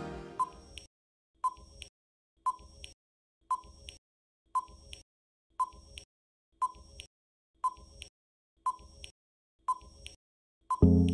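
Countdown-timer sound effect: a short electronic beep about once a second, each followed by a fainter tick, ten times in all. Background music fades out at the start and comes back in near the end.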